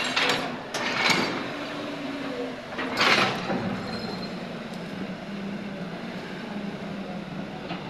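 JCB tracked excavator's diesel engine running steadily, with its bucket scraping and crunching through concrete rubble in short bursts in the first second or so and a louder burst about three seconds in.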